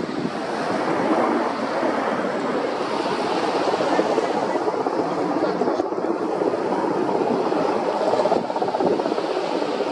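Mil Mi-8 twin-turboshaft helicopter in flight heard from on board: a steady, loud rush of rotor and engine noise.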